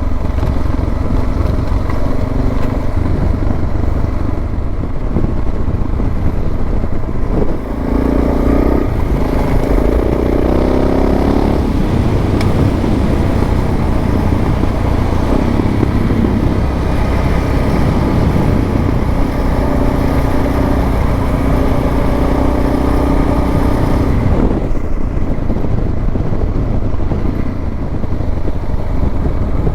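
Suzuki DR650 single-cylinder engine running while the motorcycle is ridden, with wind noise over it. The engine pitch shifts a few times along the way.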